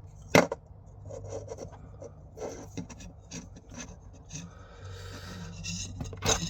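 PTFE plumber's tape being wound onto the thread of a tap fitting: light rubbing and rasping of the tape against the thread, with a sharp click about half a second in and a couple more near the end.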